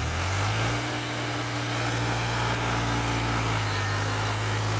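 Tractor diesel engine revving up and then holding steady at high revs under load, straining to haul a loaded trolley through deep mud.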